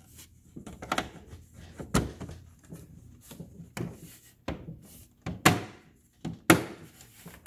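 Hard plastic pieces of a Frozen 2 Ultimate Arendelle Castle playset being pressed and snapped onto their posts: a series of sharp plastic clicks and knocks, the loudest about two, four and a half, five and a half and six and a half seconds in.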